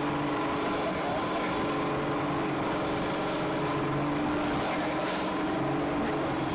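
A boat's engine running with a steady, even drone.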